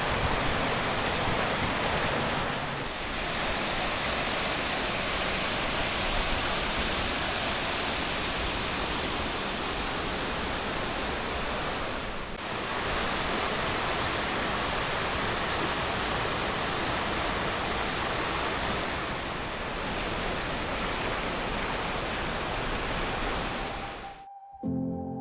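A waterfall's rushing water, a steady dense rush that cuts off abruptly near the end.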